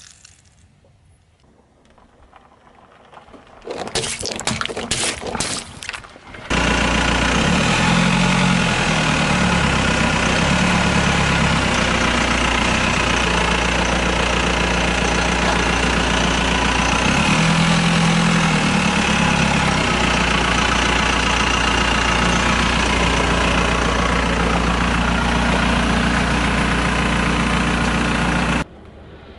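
Car engine idling steadily close by, with a low hum under a loud, even noise. It shifts slightly in pitch a couple of times and cuts off abruptly near the end.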